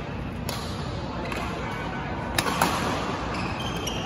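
Badminton racket strikes on a shuttlecock during a rally: a sharp hit about half a second in and two more close together past the middle, over steady background noise of a large hall. Faint high squeaks near the end.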